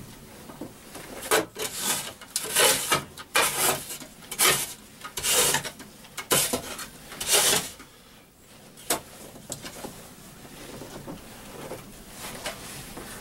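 Rough rubbing and scraping strokes, about eight of them over some six seconds, as a spot is brushed and cleared. The strokes then ease off into fainter rustling.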